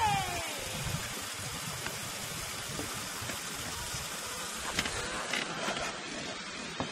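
Steady rushing noise of river water and wind heard from a canoe on the river. A short falling call comes at the very start, and a light knock or two about five seconds in.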